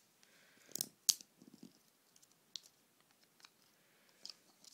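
Clear plastic packaging clicking and crackling as a small music player is worked out of its holder. A couple of sharp clicks come about a second in, then fainter scattered ticks and a few more near the end.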